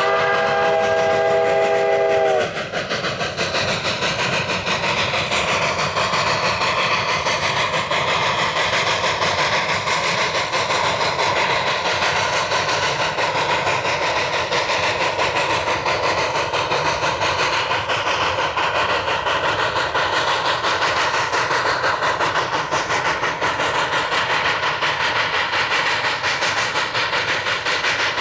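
Narrow-gauge steam locomotive whistle sounding a chord of several steady tones that stops about two and a half seconds in. It is followed by the steady rumble and clatter of the train rolling along the rails.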